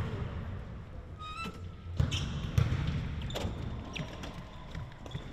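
Basketballs bouncing on a gym court: irregular sharp thuds, several in a few seconds, with a brief high squeak about a second in.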